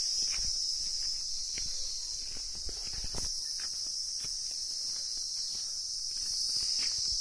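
A steady, high-pitched chorus of calling insects, with footsteps crunching irregularly on a stony dirt track.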